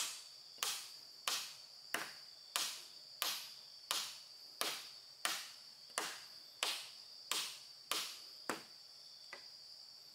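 A tool striking wood in an even rhythm, about one and a half blows a second, fourteen or so strong strokes that stop near the end. A steady high insect drone runs underneath.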